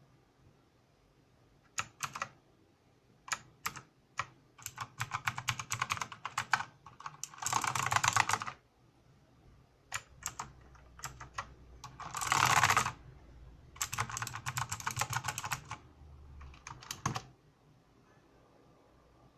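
Mechanical keyboard with clicky blue switches being typed on: scattered single keystrokes and runs of fast typing, with two short, dense flurries of keys that are the loudest part. The typing stops a couple of seconds before the end.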